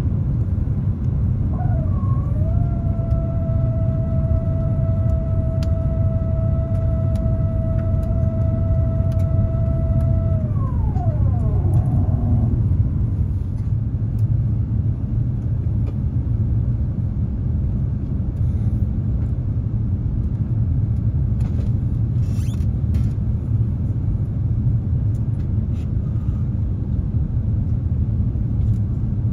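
Airbus A350-900 cabin noise on descent: a steady low rumble of its Rolls-Royce Trent XWB engines and airflow. About two seconds in, a steady whine starts and holds for around nine seconds, then slides down in pitch and dies away.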